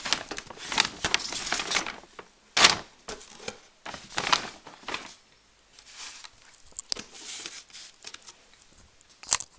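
A shopping bag and toy packaging rustling and crinkling as they are handled, in irregular bursts, the sharpest crackle about two and a half seconds in, with a click near the end.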